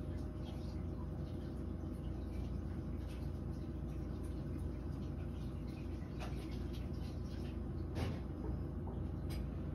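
Warm-air fan heater running with a steady low hum, and three light clinks of crockery being washed at a sink, the sharpest about eight seconds in.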